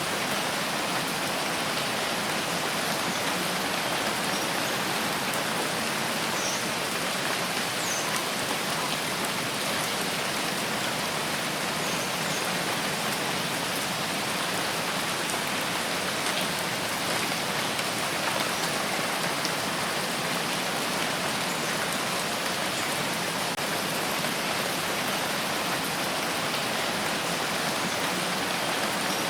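Steady rain falling, an even hiss of many drops that holds at one level throughout.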